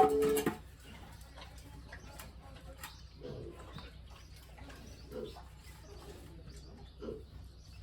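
Animal calls: a loud short pitched call right at the start, then faint low calls repeating about every two seconds.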